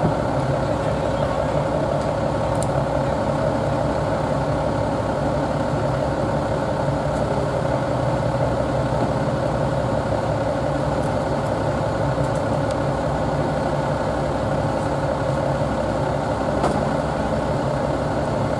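A vehicle engine idling steadily, with a constant hum that does not rise or fall.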